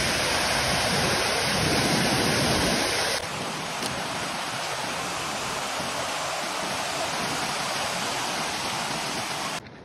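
Waterfall rushing: a loud, steady wash of falling water. About three seconds in it cuts to a mountain creek cascading over rocks, a little quieter and just as steady.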